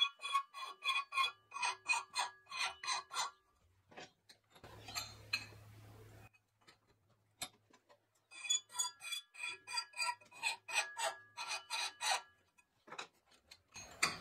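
Steel being filed by hand: two runs of quick back-and-forth strokes, about three a second, the steel ringing with each stroke. A short low hum with hiss comes between the two runs.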